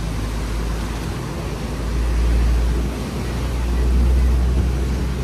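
Safari ride truck driving along: a steady low engine and road rumble that swells louder twice.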